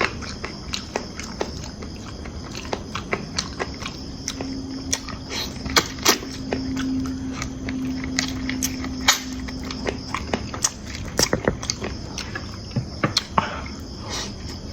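Cooking utensils clicking and knocking irregularly against a pan, with a steady low hum for several seconds in the middle.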